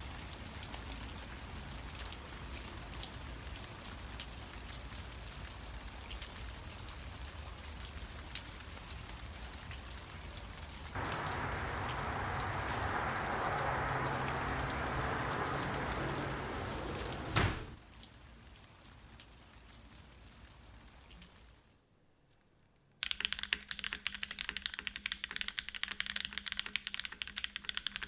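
A steady hiss with scattered light clicks, louder from about 11 seconds in and ending in one sharp knock, then a quiet lull. About 23 seconds in, fast continuous typing starts on a custom mechanical keyboard with lubed Cherry vintage black switches in an aluminium-plated Matrix 8XV 2.0, a dense clacking of keystrokes.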